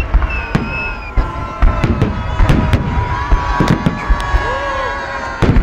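Aerial firework shells bursting overhead in a fast, irregular run of bangs, many overlapping.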